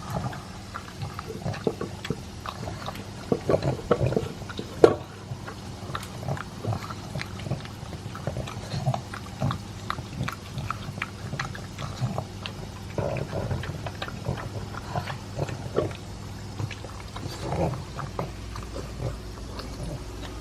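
Pug eating dry kibble mixed with beef: irregular crunching and chewing clicks, the sharpest crunch about five seconds in.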